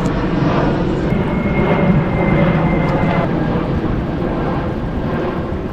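Airplane passing overhead: a steady engine rumble that slowly fades, with a thin high whine for about two seconds near the start.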